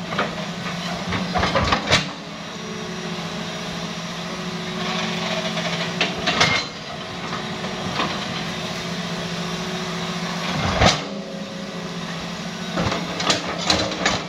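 Hitachi hydraulic crawler excavator's diesel engine running steadily under digging work, with sharp knocks and clanks every few seconds as the bucket and arm work the mud.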